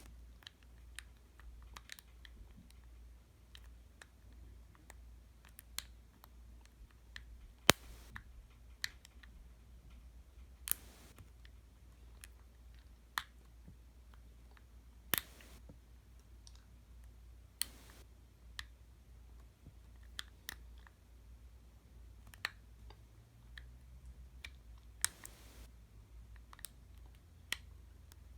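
Light, irregular clicks of a steel lock pick working the pin stack of a Master Lock 410 LOTO padlock during single-pin picking, with one sharper click about eight seconds in.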